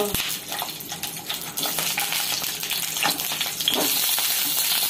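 Stuffed green bell peppers (capsicum) sizzling in hot oil in a kadhai as they are set in one after another, the sizzle growing louder as more go in, with a few light knocks.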